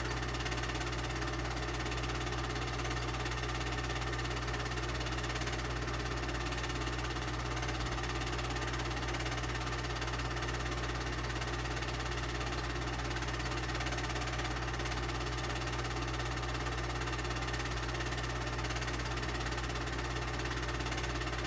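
A home-movie film projector running: an even mechanical drone and hiss that carries on unchanged through the picture's cuts.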